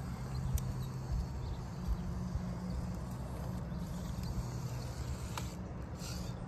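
RC rock crawler's 2100kv 3Brothers Yellow Jacket brushless outrunner motor and geared drivetrain running steadily at crawl speed as the truck climbs granite rocks, with a few sharp clicks of tires and chassis on stone.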